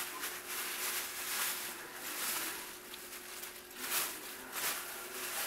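Plastic bag rustling and crinkling as fish fillets are shaken in fish-fry batter mix inside it, with a louder crackle as the bag is opened about four seconds in.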